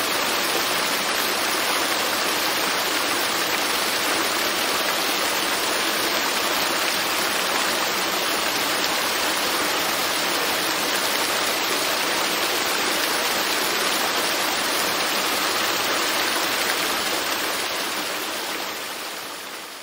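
Waterfall: a steady rush of falling water, fading out over the last few seconds.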